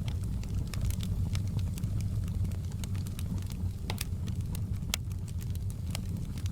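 Fire in a fireplace crackling: irregular sharp pops and snaps over a steady low rumble of the flames.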